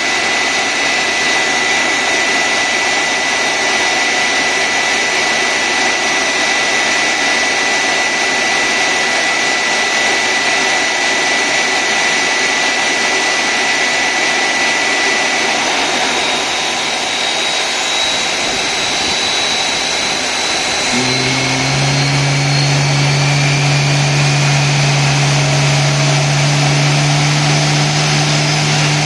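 Airbus A320 jet engines running loud with a steady high whine. Past the middle a rising whine comes in as an engine spools up during start, and about two-thirds of the way through a strong steady low hum joins.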